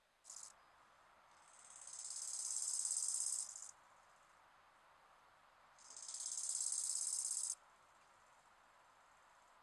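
Bow-winged grasshopper (Chorthippus biguttulus) stridulating: two high, buzzing song phrases a couple of seconds apart, each swelling in loudness over about two seconds and then stopping abruptly. A brief short rasp comes just at the start.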